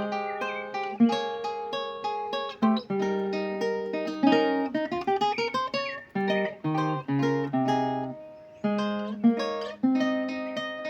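A requinto played solo: a plucked melody of quick single notes mixed with strummed chords. A fast rising run of notes comes in the middle, then lower notes, a short lull and the melody resuming.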